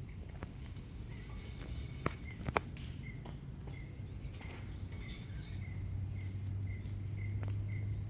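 Insects chirping steadily in a regular, repeating pattern, with a few sharp clicks about two seconds in and a low hum growing over the second half.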